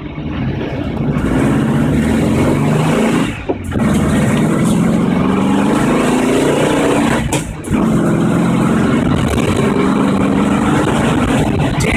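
1973 Volkswagen Beetle's air-cooled flat-four engine accelerating under load, its pitch climbing, dropping briefly twice for gear changes about three and a half and seven and a half seconds in, then climbing again. It is heard inside the stripped cabin with no interior trim.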